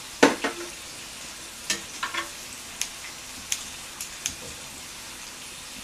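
Pork belly sizzling on a grill: a steady frying hiss broken by about eight scattered sharp clicks.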